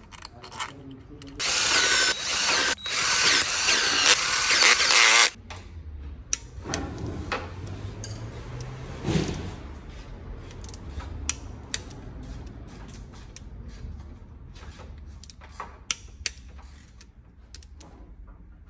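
A power tool runs loudly for about four seconds, with a short break partway. Then a ratchet wrench clicks in short, scattered strokes as bolts at the engine's timing-chain end are tightened to a torque-and-angle spec.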